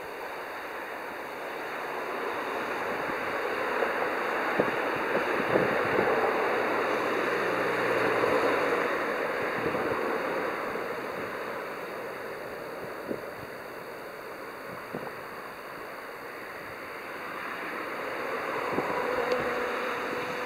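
A rushing background noise swells and fades twice, with a few small clicks. Near the end a western honey bee's wings start a steady low buzz.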